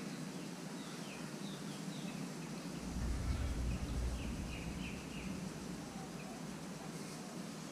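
Small birds chirping in short, quick, downward-sliding notes, in two brief runs, over a steady outdoor background hum. A low rumble swells about three seconds in and fades a second or so later.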